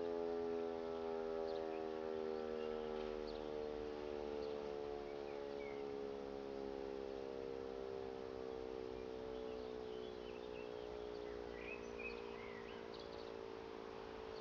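E57 electric motor siren winding down, its single tone sliding slowly lower and fading away as the rotor coasts to a stop.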